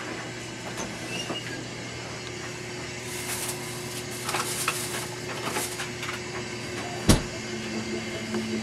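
Plastic bag rustling and crinkling as a hand rummages through it, over a steady low hum. A single sharp knock about seven seconds in.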